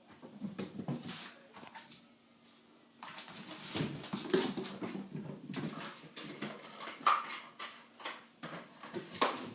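Kitten batting and tumbling with a cardboard toilet-paper tube on a hard floor: an irregular run of light taps, scuffs and scrabbling, busier from about three seconds in.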